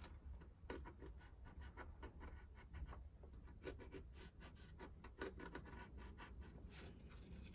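Pencil scratching on the wooden hull planking in many short, faint strokes, marking gun-port positions through the openings of a paper template.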